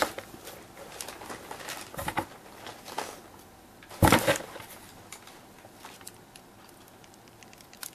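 A cat's paw batting through a hole in a cardboard box at a dangled strip of plastic tape: scattered rustles, scratches and taps on the cardboard, with the loudest scuffle about four seconds in.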